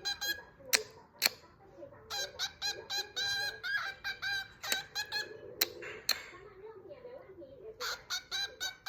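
Cockatiel calling excitedly in quick repeated chirps, several a second, with a few sharp clicks among them and a brief lull near the end before the calls start again.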